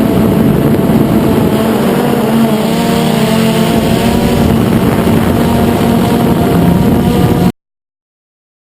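DJI Phantom 2 quadcopter's four brushless motors and propellers buzzing steadily and loudly. The pitch wavers up and down for a couple of seconds in the middle as the motors change speed. The sound cuts off suddenly near the end.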